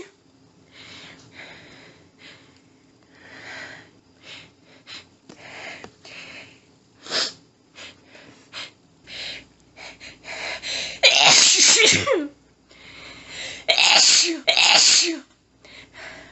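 A woman's sneezing fit: short breathy hitches and catches of breath for the first ten seconds, with a brief sharp sneeze about seven seconds in, then several strong sneezes in quick succession over the last five seconds.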